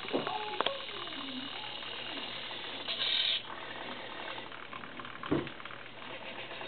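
Hobby servos of a homebuilt robot arm whirring in a short burst as the arm swings. Plastic clicks come near the start and a single knock about five seconds in as the gripper handles the discs.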